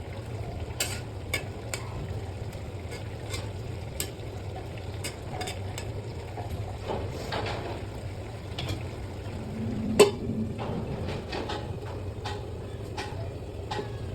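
A cooking utensil clinking and scraping in a pan of curry on the stove, with a sharp knock against the pan about ten seconds in.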